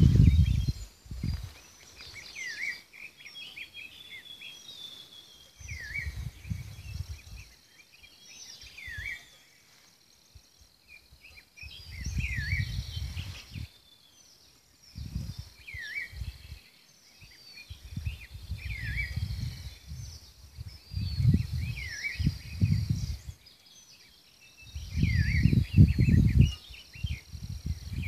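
Wind buffeting the microphone in gusts that come and go every few seconds, with birds calling through it: a short hooked chirp repeated every couple of seconds and higher twittering.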